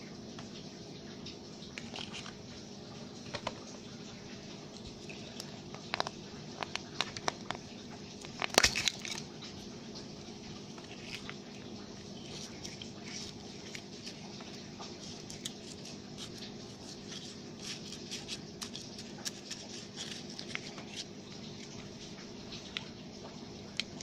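Fingers squishing and pulling gooey slime in plastic Easter egg halves, giving scattered sticky clicks and crackles, with the loudest cluster about nine seconds in. Underneath is a steady hiss of rain.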